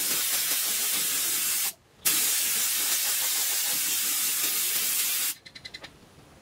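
Spray finish hissing out of a nozzle onto a wooden knife handle in two bursts: a short break under two seconds in, then a longer burst that stops sharply about five seconds in, followed by a few faint quick ticks.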